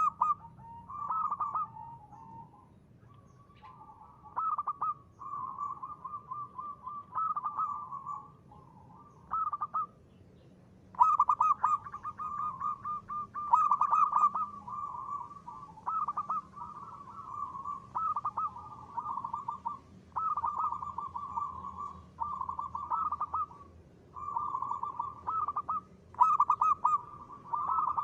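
Zebra dove (perkutut) cooing: a string of trilled, rolling coo phrases at one steady pitch, each about a second long, repeated with short pauses between them.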